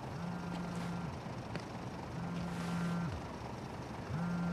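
Smartphone vibrating for an incoming call: three low buzzes, each about a second long and about two seconds apart.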